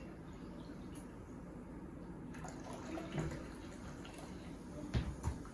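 Spent vinegar and baking-soda slurry being poured out of a volcano container into a pan: a faint, steady trickle and splash of liquid. A short knock about five seconds in.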